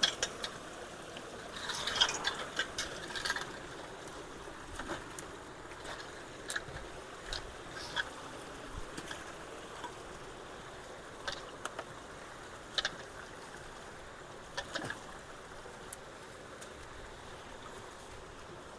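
Ditch water running steadily into a culvert, with scattered sharp clicks and knocks, a cluster of them about two seconds in.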